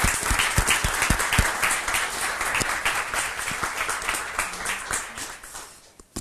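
Audience applauding, a dense patter of many hands clapping that fades away about five to six seconds in.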